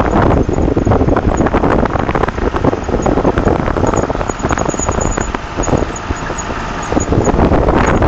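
Onion harvester running along a crop row: its engine running with a dense, continuous clatter from the lifting conveyor and machinery.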